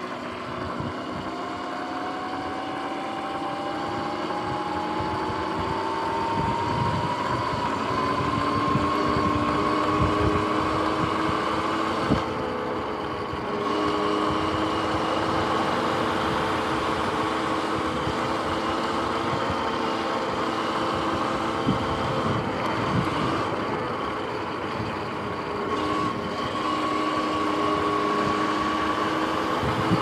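Sur-Ron X electric dirt bike's motor and chain drive whining under way, the pitch rising steadily as the bike gathers speed over the first ten seconds, then holding steady. The whine eases off briefly about a third of the way in and again later, as the throttle is let off.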